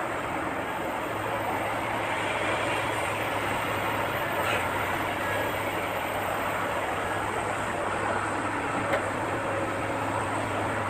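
Diesel engine of a heavy earthmoving machine running steadily: a low, even hum under a dense, steady rush of noise.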